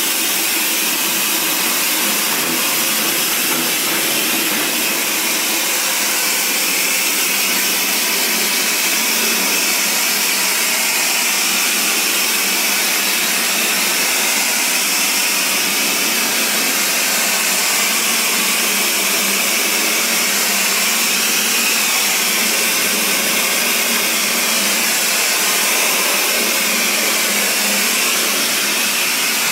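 Hand-held electric hair dryer blowing steadily on a silk screen to dry it: an even, unbroken motor-and-air rush.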